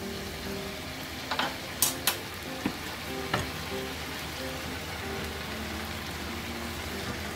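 Chicken sizzling in a thick red chili-paste sauce in a nonstick wok while it is stirred with wooden spatulas, with a few sharp clacks of the spatulas on the pan between about one and three and a half seconds in.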